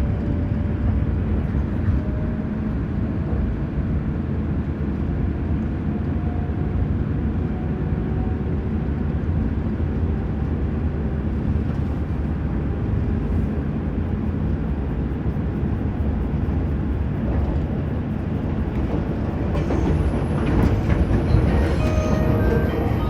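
Kintetsu train running, heard from inside the passenger car: a steady rumble of wheels and running gear, with faint rising motor tones in the first several seconds. About twenty seconds in, a high thin whine joins, and near the end the first notes of the onboard announcement chime begin.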